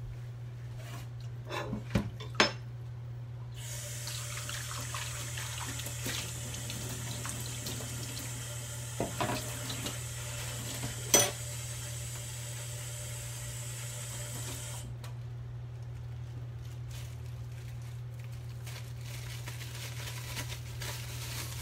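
A water tap running into a sink, turned on a few seconds in and shut off abruptly about eleven seconds later. A few sharp knocks of dishes sound before and during it, over a steady low hum.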